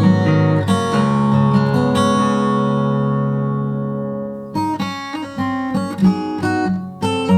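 Background music: acoustic guitar, plucked and strummed, with a chord left ringing and fading in the middle before quick plucked notes pick up again.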